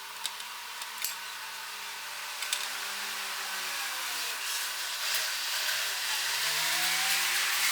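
A power tool running with a steady hiss that builds in loudness, with a few sharp clicks early on and a wavering hum whose pitch shifts.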